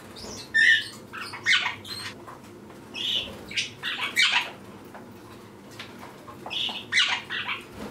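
Budgerigars chirping and chattering: short, sharp, high calls in several clusters with quieter gaps between.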